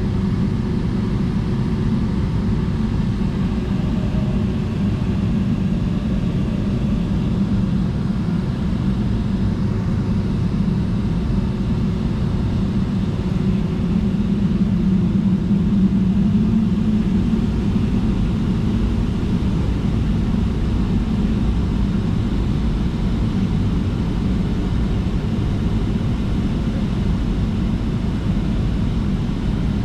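Airliner cabin noise while taxiing: the jet engines and airflow give a steady low rumble heard through the fuselage, swelling slightly about halfway through.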